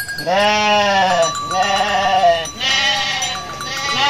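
Garut sheep bleating: four long bleats, one after another.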